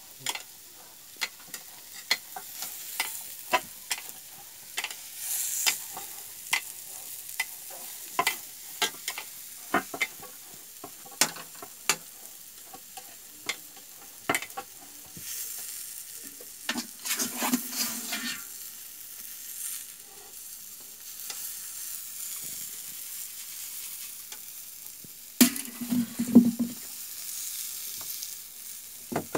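A metal spatula knocking and scraping irregularly against a steel kadai of frying green vegetables, over a steady sizzle. The taps come about once or twice a second, with a cluster of louder knocks near the end.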